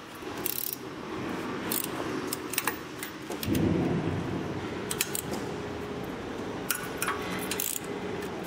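Scattered metal clicks and clinks of a hand tool working on a machine frame, over a steady low rumbling noise that grows louder about three and a half seconds in.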